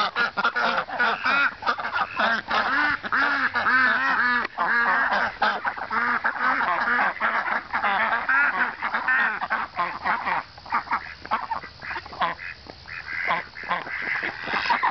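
A flock of domestic ducks quacking over and over, many short calls overlapping. The calling thins out about two-thirds of the way through and picks up again near the end.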